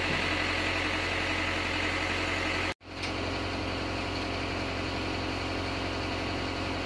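Diesel engine idling steadily with an even low hum, broken by a momentary dropout about three seconds in.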